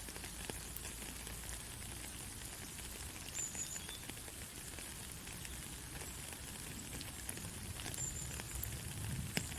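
Rain falling and pattering: a steady hiss with many small drop clicks, one sharper tap near the end, and two faint brief high chirps.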